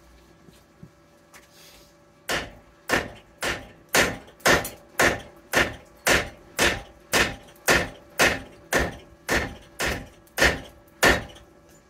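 A 2 lb sledgehammer pounding the corroded, seized rear wheel hub bearing assembly of a 2012 Subaru Outback to drive it out. About seventeen hard blows come at a steady pace of roughly two a second, starting about two seconds in.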